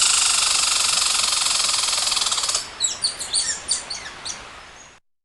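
High-pitched animal calls, bird-like: a loud, fast buzzing trill for about three seconds, then a string of short, quick chirps that fall in pitch, ending abruptly.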